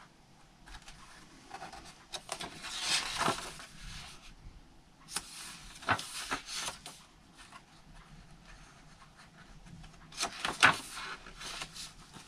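Paper pages of a handmade junk journal being turned and handled: three bouts of rustling with sharp paper flaps, the loudest about ten and a half seconds in.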